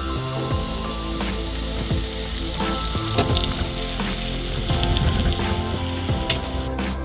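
Pancake batter sizzling as it fries in hot fat in a non-stick pan: a steady hiss with scattered small pops and crackles.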